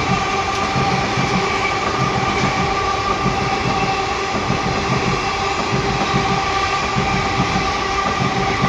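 Freight train rolling past on the rails. A steady loud rumble runs throughout, with several steady ringing tones over it.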